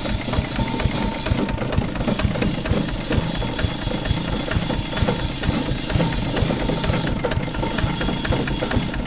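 Motor-driven straw chopper running under load as it chops straw and grass, a fast, steady pulsing drone with a rushing hiss.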